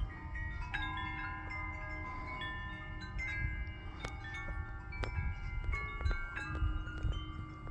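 Homemade tubular wind chimes cut from metal light-stand poles, stirred by a light breeze: irregular strikes set off overlapping, long-ringing metallic tones, with a low wind rumble underneath.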